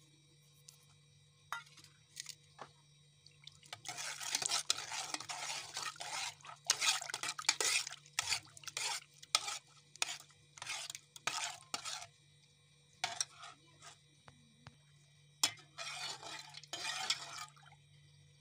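A metal spoon stirring and scraping around a steel bowl of lassi, mixing flour into it for kadhi. A run of quick scraping strokes starts about four seconds in, pauses briefly, and a few more strokes come near the end, over a faint steady low hum.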